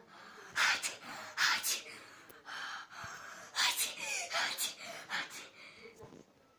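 A child's sharp gasping breaths and sneezes, several short noisy bursts with brief pauses between them.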